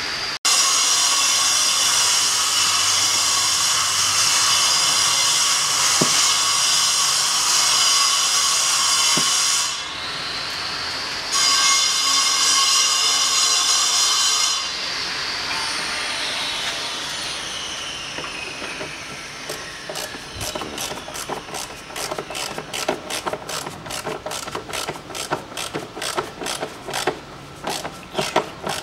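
A machine runs with a steady high whine, drops out briefly, starts again, then winds down with a falling pitch. After that come quick, irregular bursts of ratchet clicks from a ratcheting hand screwdriver driving a fixing screw into the plastic front wheel-arch liner.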